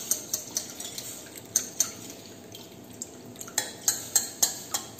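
Steel utensils clicking and clinking against a steel saucepan as buttermilk and millet-flour batter is poured through a steel strainer into it, with a trickle of pouring liquid. The clicks are sharp and irregular, coming closer together near the end.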